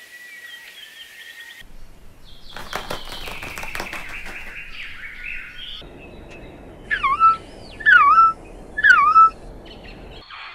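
A bird calling loudly three times, about a second apart, each call dipping and then rising in pitch. Before it come a few seconds of faint chirping and a stretch of rapid clicking and rustling.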